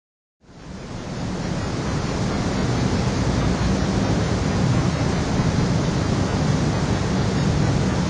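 Wind buffeting an outdoor microphone: a steady, rumbling rush, heaviest in the low end, fading in about half a second in.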